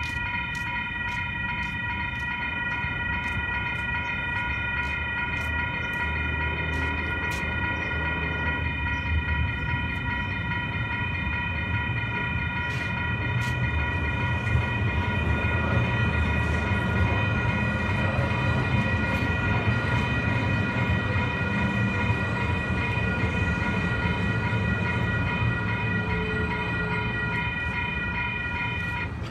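The crossing's two WCH Type-4 electronic bells ring in a steady, rapid chime while a three-car Siemens SD160NG light rail train rumbles past. The bells cut off suddenly near the end, the signal that the gates are about to rise.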